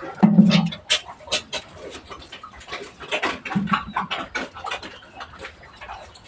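Pigs in a pen grunting, a loud low grunt about a quarter second in and another about three and a half seconds in, over a steady scatter of short clicks and knocks.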